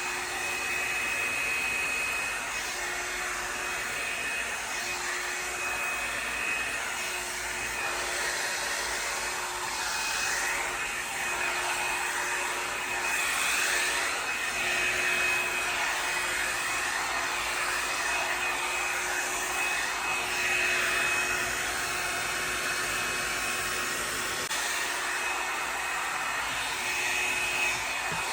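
Revlon One-Step Volumiser hot-air brush dryer running, its fan giving a steady whine over a rush of hot air. The air noise swells a little now and then as the brush is worked through thick, still-wet hair.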